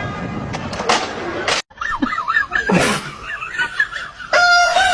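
A rooster starts crowing near the end, a long, loud, steady call. Before it, voices and laughter over clicks and scuffing noise.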